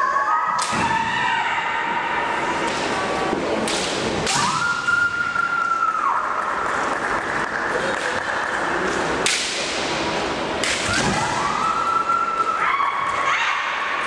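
Kendo bout between two women fencers: sharp cracks of bamboo shinai strikes and stamping on a wooden floor, with long high-pitched kiai shouts that rise, hold and drop, about four seconds in and again about eleven seconds in.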